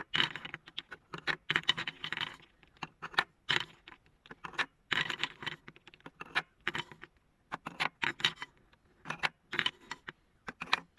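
Marbles clattering and rattling through a marble run track, in irregular bursts of quick clicks and knocks every second or so.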